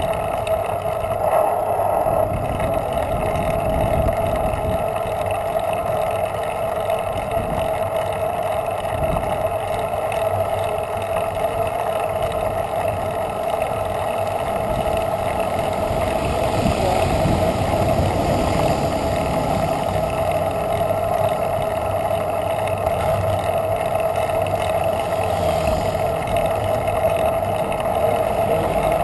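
Steady wind and road rumble from a riding bicycle picked up by its mounted action camera, with a constant even drone and no break or change in pace.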